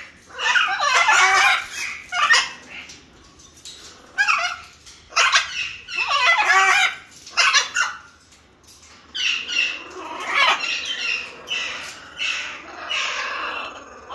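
Green-winged macaws calling in a series of loud, harsh squawks, each about half a second to a second and a half long, with short gaps between. From about nine seconds in, the calls come shorter and closer together.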